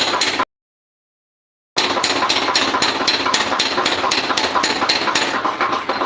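Rapid, regular hammer blows on iron at an anvil, about four to five strikes a second, each with a metallic ring. The hammering breaks off into total silence for about a second shortly after the start, then resumes.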